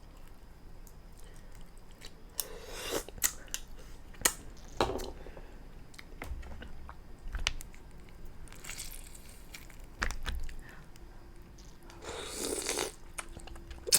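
Close-up eating of black lip mussels: chewing and mouth smacking with scattered sharp clicks and a few short, noisy, breathy stretches.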